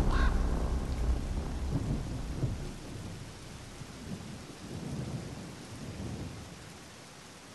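Deep thunder rumbling and dying away over about three seconds, with a faint rain-like hiss and a few softer rumbles after it. A brief pitched call sounds right at the start.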